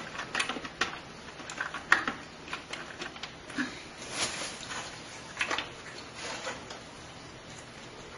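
Irregular clicks, taps and rustling from hands handling cables, plastic connectors and parts inside an open computer case, with sharp clicks right at the start and about two seconds in, thinning out near the end.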